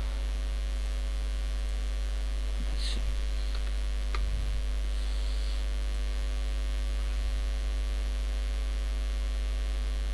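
Steady electrical mains hum, a low buzz with a ladder of overtones, carried on the recording. A few faint clicks come about three to four seconds in.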